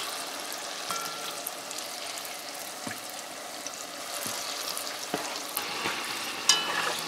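Pholouri batter balls deep-frying in hot oil with a steady sizzle. A metal slotted spoon turning them adds a few light clicks, and a short ringing scrape near the end.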